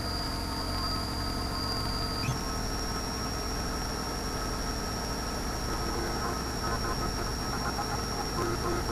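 Syil X5 Pro CNC milling machine cutting aluminium stock: a steady machining noise with a high whine that steps up in pitch a little over two seconds in.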